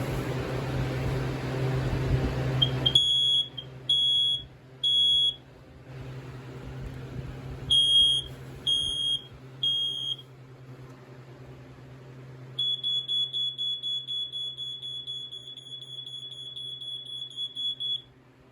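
Smoke alarms on test: after a steady rushing noise, a piezo horn sounds two rounds of three shrill beeps, the temporal-three fire alarm pattern. After a pause an alarm sounds a rapidly pulsing continuous tone for about five seconds, then cuts off.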